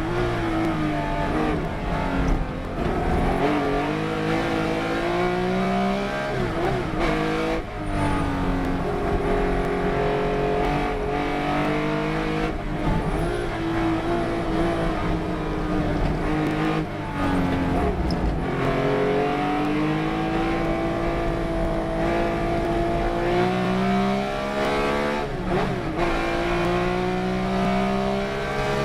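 Race car engine running hard at racing speed. Its pitch repeatedly climbs under acceleration, breaks off briefly at each gear change or lift, and drops away under braking.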